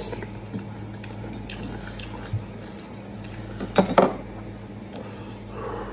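Eating crispy roast pork hock close to the microphone: small clicks and crackles of the crisp skin being chewed and handled. A metal spoon clatters against the dish in a quick cluster of knocks about four seconds in.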